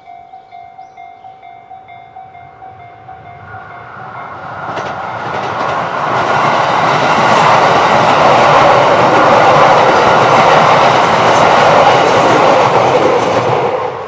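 Japanese level-crossing warning bell dinging at an even, rapid rate, about three times a second. From about four seconds in, a limited express electric train approaches and passes: a rising rush of running noise with wheel clatter that becomes loud and drowns the bell, then eases near the end.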